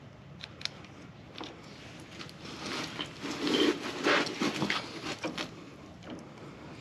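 Handling noise from lining up plastic drain-plug housing parts around a screwdriver: a few light clicks, then a louder stretch of rubbing and scraping in the middle.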